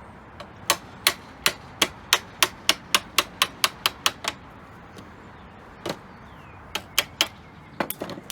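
Hammer tapping, about fourteen sharp taps that quicken over the first few seconds, then a handful of scattered taps, as the drilled-out rivets and end cap of an aluminium level are knocked loose.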